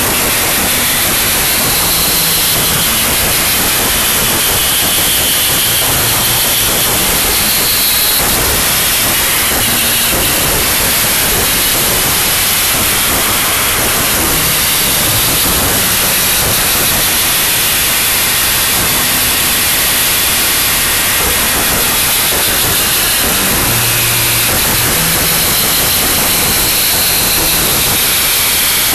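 Harsh noise wall: a loud, unchanging wall of dense static hiss, with faint short tones flickering in and out beneath it.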